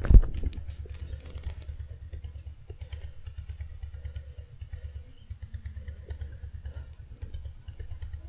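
Fishing reel giving out a dense run of rapid clicks over a steady low rumble, with a sharp thump just at the start.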